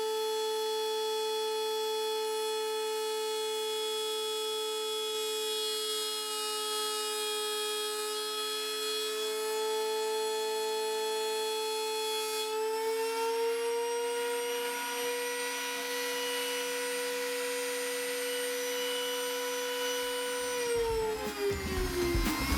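A cheap, somewhat noisy router and its dust-collection vacuum running together with a steady high whine. A little past halfway the whine's pitch rises slightly. Near the end one motor's pitch drops as it spins down, while a lower steady hum carries on.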